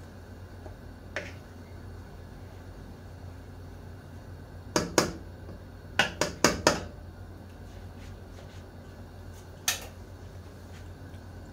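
Utensils and cookware clicking and knocking in short sharp strikes: one about a second in, two near five seconds, a quick run of four around six seconds, and one more near ten seconds, over a steady low hum.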